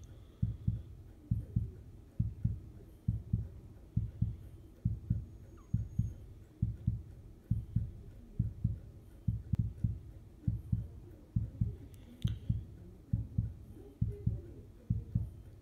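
Low heartbeat-like double thumps (lub-dub), repeating evenly about every 0.8 s, around 75 a minute, in step with the pulse shown during an Apple Watch ECG recording.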